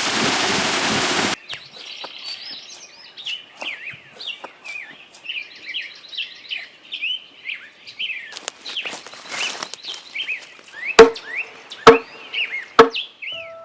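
Small birds chirping over and over in quick gliding calls, with faint clicks, then three sharp, loud wooden knocks about a second apart near the end, the kind of blows struck while shaping wood by hand. It opens with about a second of loud hiss.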